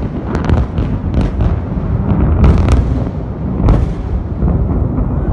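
Loud rolling thunder: a continuous low rumble broken by a run of sharp cracks, the loudest of them about two and a half and three and a half seconds in.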